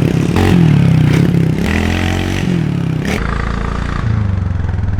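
Small 110cc dirt bike's single-cylinder four-stroke engine being ridden, revving up and down with its pitch rising and dropping several times. A little past three seconds in it settles into a steadier, lower drone.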